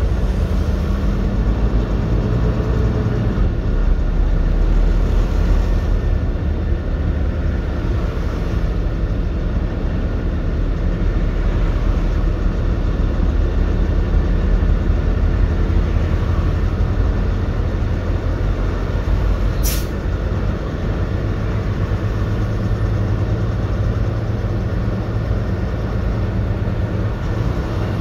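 Heavy truck cruising at highway speed, heard from inside the cab: a steady low engine drone over tyre and road noise. There is a single brief sharp click about twenty seconds in.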